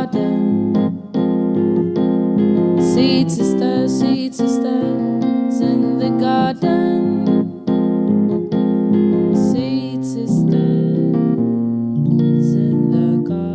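Closing jingle played on keyboard: electric-piano-style music with a run of pitched notes.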